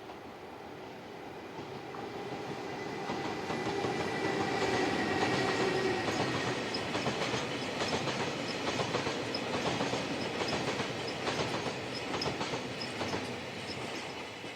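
An EH200 electric locomotive hauling an oil tank-car freight train passes by. It builds up with a steady whine that dips slightly in pitch as it goes by, then the wagons' wheels click steadily over the rail joints, fading near the end.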